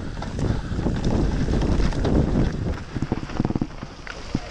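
Mountain bike descending a rough dirt trail at speed: tyres rumbling over the ground with the bike clattering and knocking, and wind buffeting the microphone. The knocks come thick and fast near the end.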